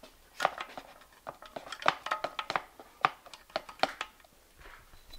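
Hand tools clicking and clinking against metal engine parts as they are worked and handled: irregular sharp knocks, a few with a short ring.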